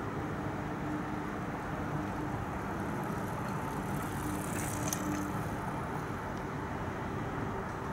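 Steady hum of distant road traffic. A bicycle passes close by about halfway through, with a short rattle and click from the bike.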